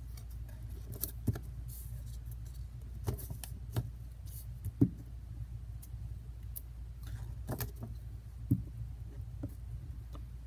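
Paper cut-out shapes and a glue stick being handled on a tabletop: scattered light taps, clicks and paper rustling over a steady low hum.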